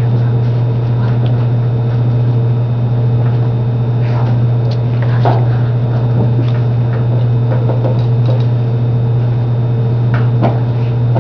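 Steady loud low hum, with faint scattered clicks and knocks over it.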